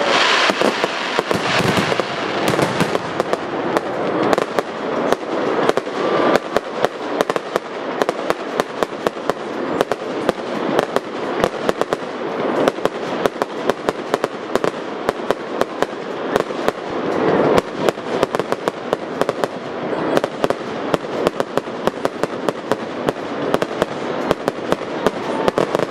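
Fireworks display with shells and comets firing and bursting: a dense, continuous run of sharp bangs and crackles, several a second, over a constant hiss.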